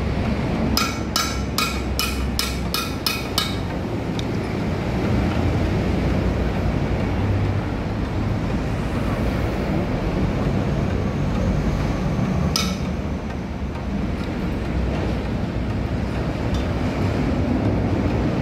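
A hammer striking metal: about eight quick ringing blows in a row near the start, and one more blow about twelve seconds in, over a steady low rumble.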